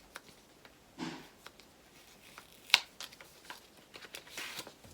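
Small blind-bag packet being handled and opened by hand: scattered light rustles and clicks, with one sharp click a little past the middle.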